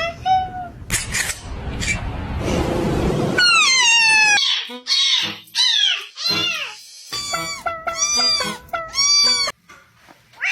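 Cats meowing: after a couple of seconds of rustling noise come several drawn-out meows falling in pitch, then a quick run of short meows.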